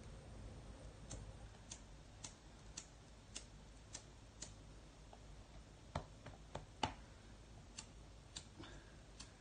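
A lighter being flicked over and over, faint clicks about twice a second, with a few sharper clicks around six and seven seconds in.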